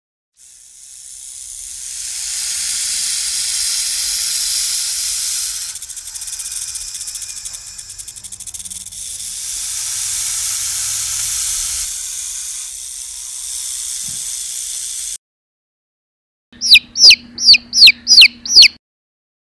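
A snake hissing in one long, breathy hiss that runs for about fifteen seconds and turns raspier for a few seconds in the middle. After a short silence, a chick peeps loudly about seven times in quick succession, each peep sliding downward in pitch.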